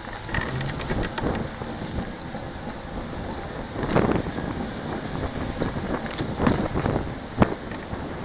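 Electric unicycle rolling along a paved sidewalk: steady tyre rumble and wind on the camera's microphone, with a constant high whine and sharp knocks from bumps, the loudest about halfway through and two more near the end.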